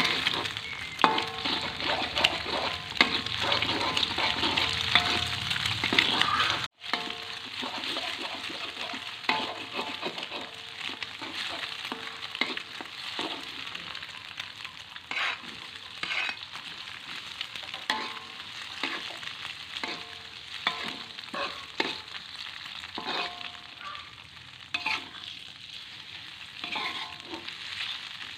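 Oil sizzling in a frying pan while a spatula stirs, with frequent short clinks and scrapes of the spatula against the pan. The sound cuts out for an instant about seven seconds in and then goes on a little quieter.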